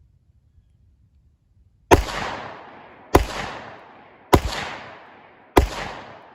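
Four single shots from an M4A1-style AR carbine with a 14-inch barrel, fired semi-automatically about a second and a quarter apart, starting about two seconds in. Each loud crack trails off over about a second before the next.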